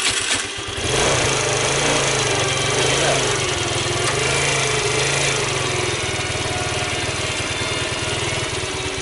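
Tao Tao Thunder 50cc scooter's four-stroke engine on a cold start: the electric starter cranks briefly and the engine catches within the first second, with the electric choke plunger held down by hand. The revs rise and fall for a few seconds, then settle to a steady idle.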